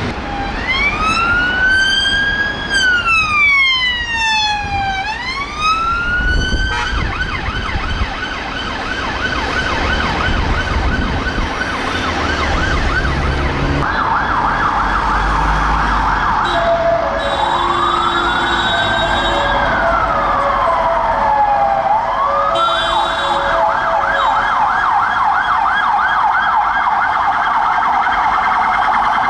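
Emergency sirens. A fire engine's siren wails in a slow rise and fall, then switches to a fast yelp about seven seconds in. Later, police vans' sirens alternate between a fast yelp and one slow rise-and-fall wail, with a lower steady tone underneath partway through.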